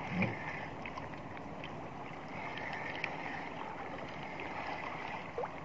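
Wind and choppy waves washing against a small outrigger boat, a steady even rush of noise.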